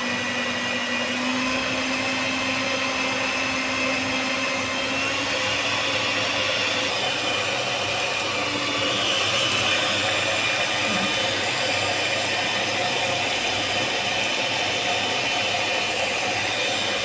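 Electric food mixer's motor running steadily as it beats eggs and sugar into a batter, with a faint high whine over the motor noise.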